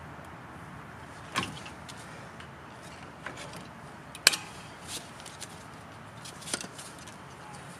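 A few separate sharp metallic clicks and knocks of hand tools being handled at a truck's front brake assembly. The loudest comes about four seconds in.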